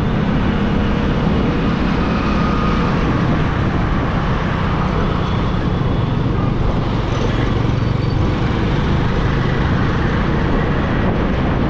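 Yamaha motorcycle being ridden through traffic. The engine holds a steady pitch under a thick, even rush of wind and road noise on the action-camera microphone.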